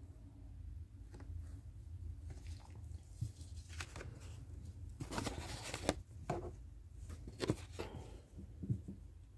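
Paper lottery scratch tickets being handled and swapped by cotton-gloved hands: a series of short rustles and light taps, the longest rustle about five seconds in.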